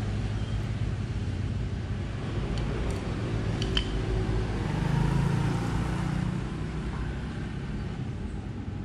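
A steady low motor hum, like an engine running, with a few faint metallic clicks of hand tools on the sprocket hub a few seconds in.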